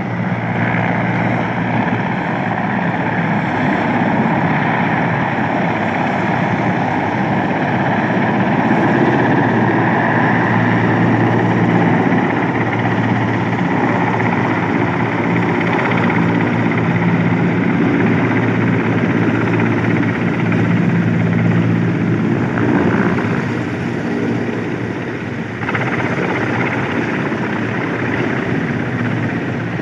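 Mil Mi-17-type twin-turbine transport helicopter hovering low and descending to land, turbines and rotor running loud and steady with a low rhythmic rotor beat.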